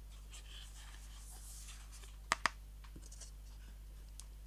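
Cardboard phone box for an iPhone 12 Pro Max being opened by hand: a soft papery rustle as the lid slides off, then two sharp taps a fraction of a second apart a little over two seconds in, and a few faint ticks.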